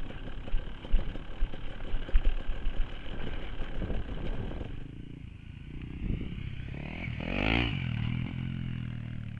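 KTM EXC250 enduro bike's engine running over a rough, rocky track, with stones clattering under the tyres. About halfway through it quietens to a steady idle, with one short rev late on.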